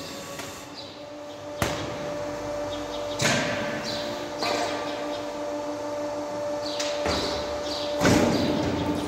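Automatic silage bagging machine cycling: sharp metal clunks about one and a half and three seconds in and a louder one near the end, with short hisses between them, over a steady motor hum. A filled silage bag is tipped off the machine's tray onto the floor.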